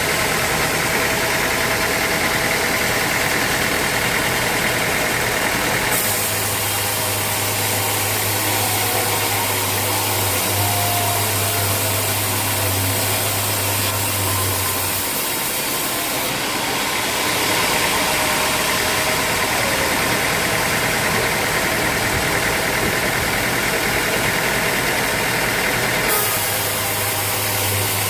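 Sawmill machinery running loudly and steadily, a low hum under a broad hiss. The sound changes abruptly about 6, 16 and 26 seconds in.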